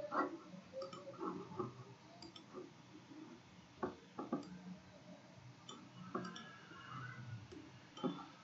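Faint, scattered small clicks and clinks, a few with a short ringing tone, spaced irregularly.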